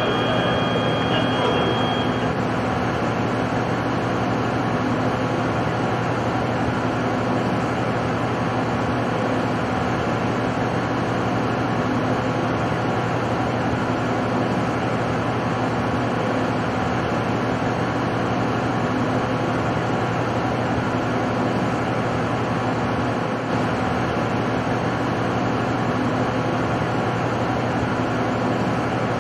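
Rotoweld 3.0 automated pipe spool welding machine running: a steady mechanical hum with an even hiss over it. A few thin high tones stop about two seconds in.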